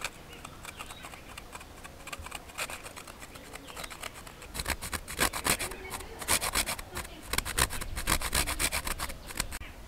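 Half a whole nutmeg being grated on a small stainless-steel hand grater: quick, repeated rasping strokes, faint at first and louder from about halfway through.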